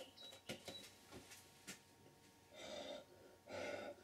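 Light clicks and rustles as a plastic full-face shield is adjusted, then two hard breaths blown out behind the visor about a second apart, testing that it does not fog.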